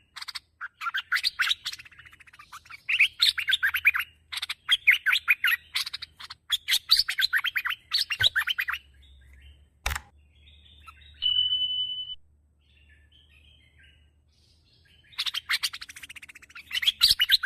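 Bulbul (merbah) calls: runs of rapid, chattering chirps in bursts, a sharp click about ten seconds in, then a short steady whistle before the chattering resumes.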